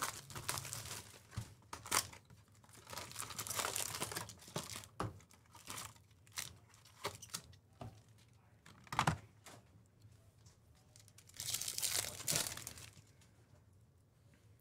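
Plastic wrapping and foil card packs being torn open and crinkled by hand as a sealed hobby box of trading cards is unwrapped, in several irregular spells of rustling with a few sharp taps between them.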